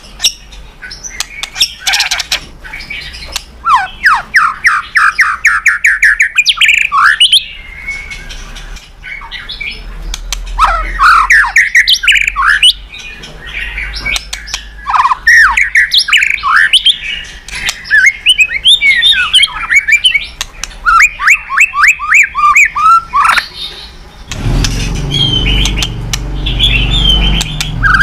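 White-rumped shama singing a loud, varied song of rapid repeated notes, sweeping whistled glides and trills, with some harsh squawk-like notes. A low hum comes in under the song about 24 seconds in.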